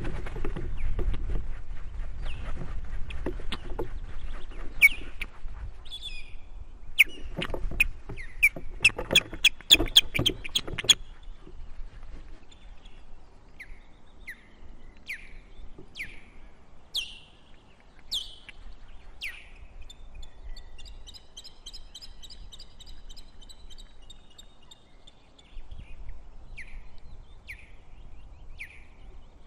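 Osprey alarm calls: short, sharp whistled notes that fall in pitch, repeated about once a second, with a quicker run of higher notes near the middle. Over the first third there are knocks and rustling over a low rumble.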